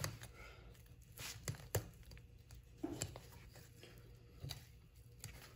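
Fillet knife blade ticking and scraping over a perch's rib bones as the fillet is cut away, a few scattered soft clicks. Hearing the bones tick means the blade is following them closely, taking as much meat as possible.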